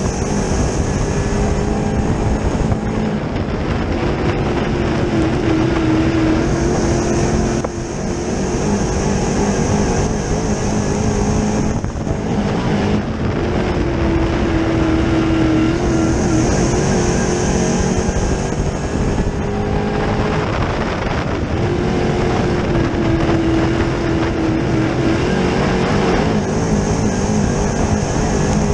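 Dirt Late Model race car's 604 crate small-block V8 at racing speed, heard from inside the car. The engine note rises and falls over and over, every eight seconds or so, as the car lifts into the turns and gets back on the throttle down the straights.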